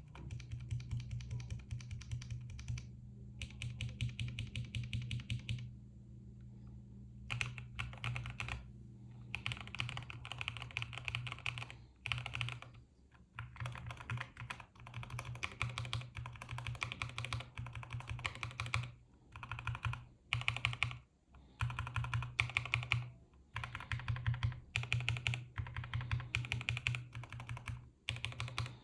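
Mechanical keyboard with linear yellow switches (Gateron Pro 2 Yellow and Magic Refiner Jelly Yellow) being typed on in quick runs of keystrokes, with brief pauses between runs. A steady low hum sits underneath.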